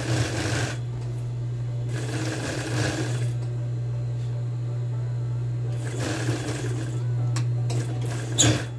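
Sewing machine topstitching denim in short runs, its motor humming steadily between them. A sharp knock near the end is the loudest moment.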